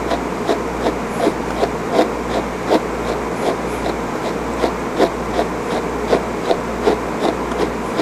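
Slicker brush flicking through an English Angora rabbit's long wool in short, quick rasping strokes, about three a second, over a steady low hum.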